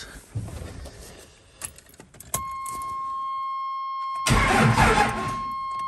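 12-valve Cummins diesel being cranked over by its starter, a loud cranking that begins about four seconds in. Before it, a steady high warning tone from the dash comes on when the key is turned and keeps sounding through the cranking.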